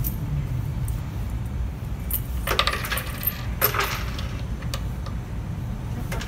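Small metal objects clinking and jingling in two short bursts a little past the middle, over a steady low rumble.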